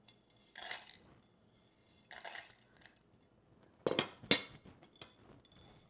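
Whole garam masala spices being tipped off a ceramic plate into an electric spice grinder's jar, rattling, with clinks of plate on jar. Two sharp clinks a little before and after four seconds in are the loudest.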